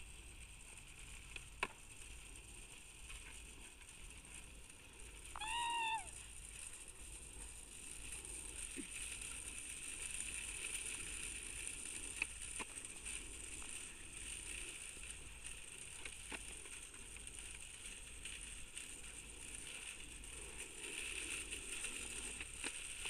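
Skateboard on asphalt: a faint rolling rumble under a steady hiss, with a few sharp clacks of the board and one short squeak about five and a half seconds in.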